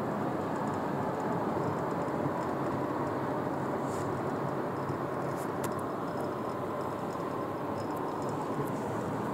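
Steady road noise of a moving car, heard from inside the cabin.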